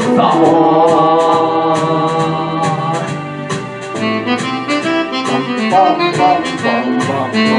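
Digital keyboard playing a slow tune in held notes over a drum-machine beat, with a man singing along.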